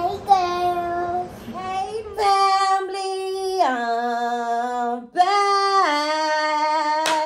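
A young girl singing an intro in long held notes that step from one pitch to another. About two seconds in, the low background hum drops out and the singing goes on cleaner.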